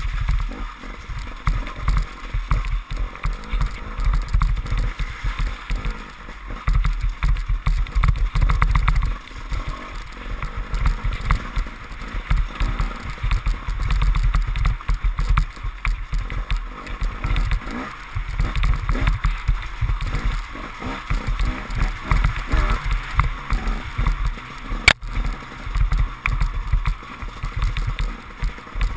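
KTM enduro motorcycle engine running and revving in surges as the bike rides through a flooded, muddy track, with water splashing and gurgling under the wheels. A single sharp knock sounds near the end.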